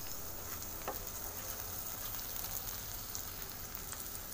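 Hot oil sizzling steadily in a non-stick frying pan as steamed, spice-coated egg cakes shallow-fry, with a few faint crackles.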